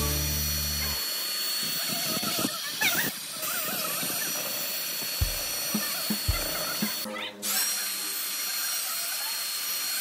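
A power tool's motor whining steadily. It cuts out briefly about seven seconds in and spins back up. Two dull knocks come a little after five and six seconds in.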